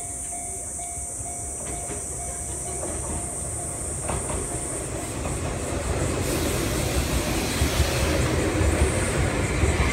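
An Enoden (Enoshima Electric Railway) train approaching and passing close by. Its rumble grows louder from about halfway through, and as the cars go past come rhythmic clacks of the wheels over the rail joints.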